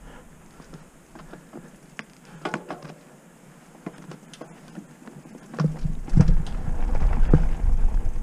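Trek Roscoe 6 hardtail mountain bike rolling down a dirt singletrack: tyres crackling over the dirt with scattered sharp clicks and small knocks. About two-thirds of the way in it gets much louder, with a low rumble and rattling knocks as the bike runs over rougher ground.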